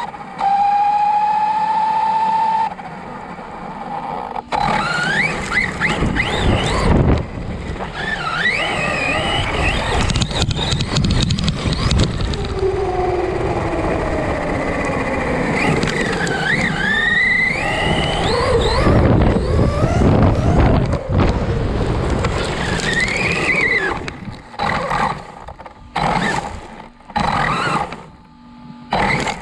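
Arrma Outcast 4S RC truck's brushless motor and drivetrain whining up and down in pitch as the throttle is worked, heard from on board, with the tyres churning over sand and shells. Several short throttle bursts near the end.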